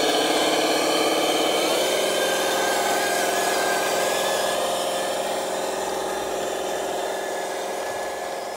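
Radio-controlled logging truck's motor running steadily as it hauls its load through mud. The pitch steps down about two seconds in, and the sound slowly fades as the truck moves off.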